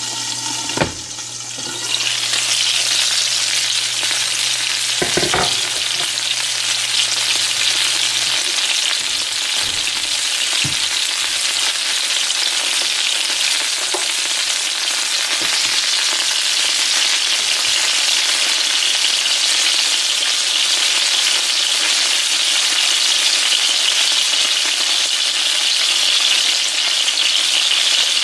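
Seasoned, breaded fish fillets sizzling in shallow oil in a nonstick skillet. The sizzle turns louder and brighter about two seconds in as the glass lid comes off, with a few short knocks from the lid and spatulas against the pan.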